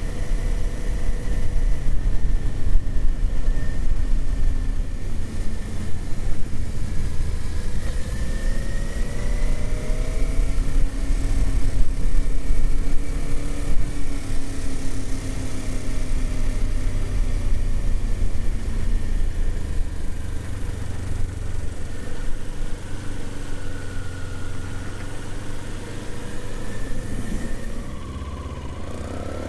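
Kawasaki Z400's parallel-twin engine running under way, its pitch rising and falling with the throttle over a steady low rumble, and dropping near the end as the bike slows.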